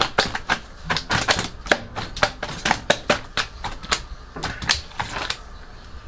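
A live grouper flopping on a tiled floor, its body and tail slapping the tiles and a metal drain grate in rapid, irregular smacks that thin out briefly past the middle.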